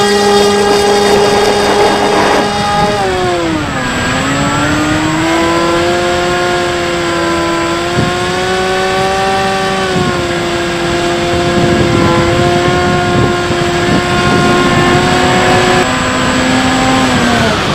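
Bixler 3 RC plane's brushless electric motor and pusher propeller running as a steady whine over wind rush. The pitch drops sharply as the throttle is pulled back about three to four seconds in, climbs back and holds, then falls again near the end.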